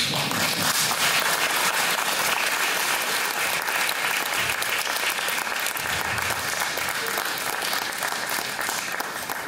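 Audience applauding, starting all at once and keeping up steadily, easing slightly near the end.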